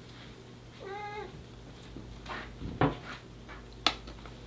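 A domestic cat meows once, a short call about a second in. Two sharp knocks follow near the end and are the loudest sounds.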